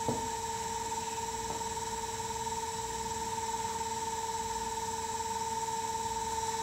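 Wood lathe running at a steady speed, its electronic variable-speed motor giving off a steady whine with a light hiss.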